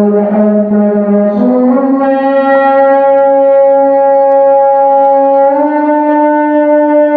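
A loud, sustained horn-like note that steps up in pitch twice, once about a second and a half in and again about five and a half seconds in.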